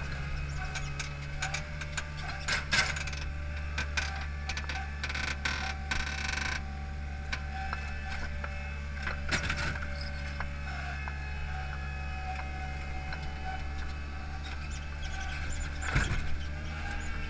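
Hydromak paving machine's engine running steadily with its hydraulics working, while the clamp carries concrete paving stones. Sharp knocks and clatter come now and then, the loudest about sixteen seconds in, with a short rush of noise around five to six seconds in.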